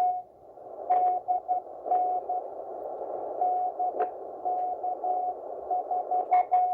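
Morse code (CW) signal on a shortwave ham radio receiver tuned to the 40-metre band: a single steady tone keyed on and off in dots and dashes over a hiss of band noise, with a few crackles of static.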